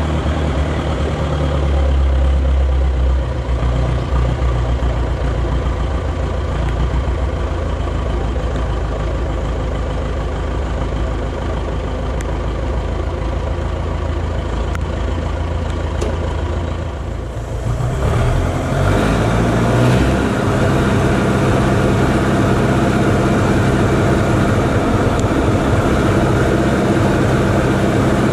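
Forklift engine running steadily at low speed. About two-thirds of the way through it turns louder and fuller as the forklift lifts a heavy diesel engine off a pickup bed.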